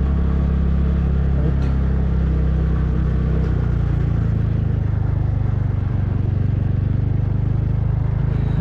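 Motorcycle engine running steadily at low speed while the bike rides over a rough, broken road. The engine note shifts slightly about three and a half seconds in.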